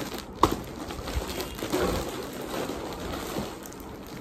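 Plastic bags of snacks rustling and crinkling as they are handled, with one sharp knock about half a second in.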